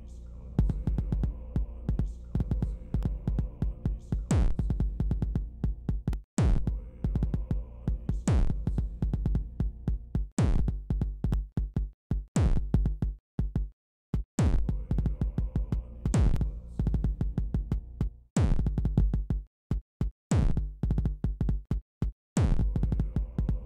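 Live-coded electronic music from several MiniTidal sample patterns running at once: dense, stuttering drum-machine kicks and chopped break hits over a deep sampled bass. A heavy accented hit lands about every two seconds, and the groove drops out briefly a few times.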